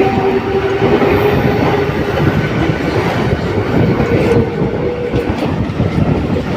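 Mumbai suburban local train running on the tracks, a steady loud rumble with wheels clattering over rail joints and a thin wheel squeal that comes and goes.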